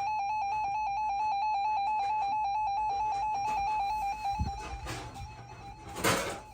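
Emergency Alert System attention tone: a loud, high electronic tone with a rapid warble that starts abruptly, holds strongly for about four seconds, then carries on more faintly. A dull thump comes about four and a half seconds in, and a short rush of noise about six seconds in.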